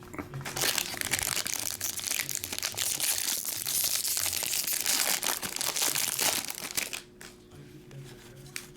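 A baseball card pack's foil wrapper crinkling and tearing as it is opened and handled: a dense run of crackling that stops about seven seconds in.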